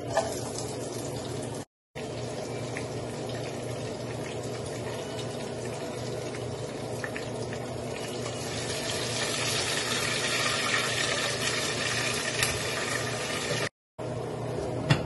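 Liquid poured from a bowl into a metal cooking pot, splashing and hissing for several seconds from about eight seconds in, over a steady low hum. A short clank near the end as the pot lid goes on.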